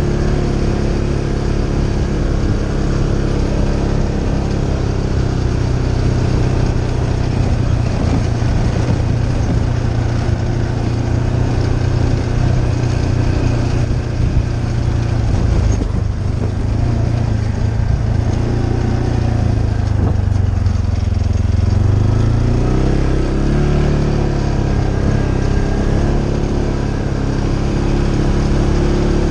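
ATV engine running steadily as the quad is ridden along a dirt trail. About twenty seconds in, the engine note drops as it eases off, then rises again as it picks up speed.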